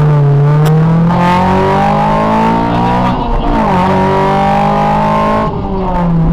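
Honda Civic rally car's engine heard from inside the cabin, pulling hard through the gears. Its pitch climbs, drops at an upshift about three seconds in and climbs again. Near the end the pitch falls and the engine goes a little quieter.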